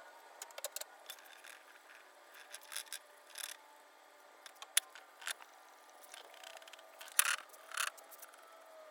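Faint, intermittent rubbing and scraping with a few sharp clicks, from hand work on small wooden tables being refinished.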